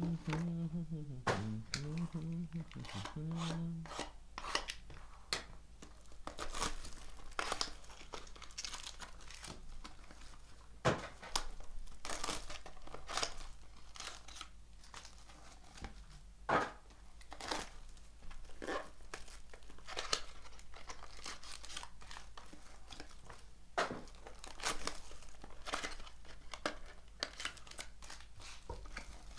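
Wrapping and cardboard of a sealed baseball card box and its packs being torn open and handled, with irregular crinkles, crackles and rustles throughout.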